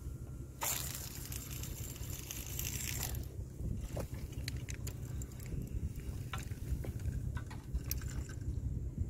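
Wind rumbling on the microphone, with a rush of hissing rustle starting about half a second in and lasting two to three seconds. Scattered light clicks and taps come through it.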